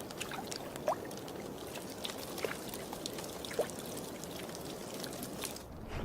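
Shallow meltwater trickling and splashing, with scattered small drips; it stops abruptly near the end.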